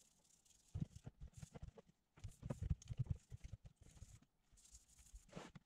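Faint handling sounds: an ignition coil pack lifted and turned by gloved hands in a plastic tub of liquid, giving two clusters of light knocks and taps and a brief rustle near the end.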